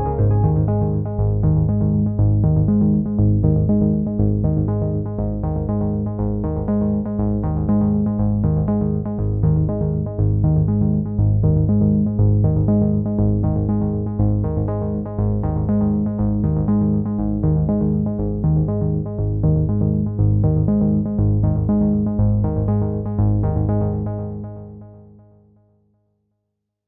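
Background electronic music with synthesizer and a steady rhythmic beat, fading out near the end.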